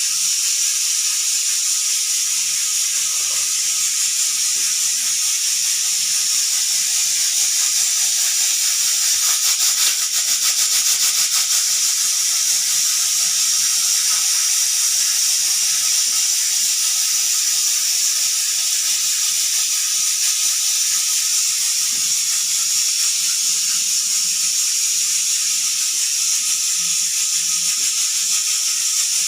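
Pressure cooker venting steam past its whistle weight at full pressure: a steady, high hiss that grows a little louder with a rapid flutter about ten seconds in, then settles back.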